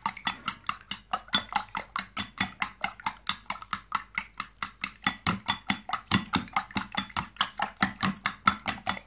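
A metal spoon beating two raw eggs in a glass bowl, clicking against the glass in a quick, even rhythm of about five strokes a second.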